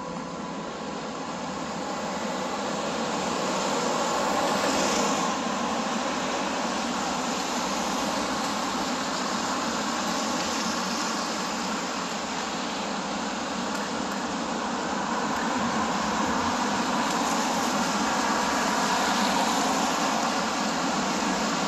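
City street traffic: cars passing on a wet road, a steady hiss of tyres and engines that swells as vehicles go by close, once about four seconds in and again near the end.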